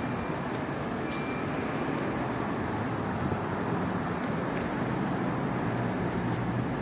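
Steady noise of road traffic, with car engines humming a little louder in the later seconds.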